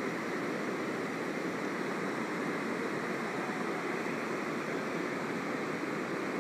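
Steady rush of fast-flowing river water below a dam.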